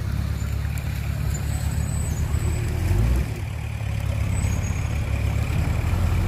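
Dump truck's diesel engine running with a steady low rumble as the emptied truck lowers its tipper bed and pulls away, briefly louder about three seconds in.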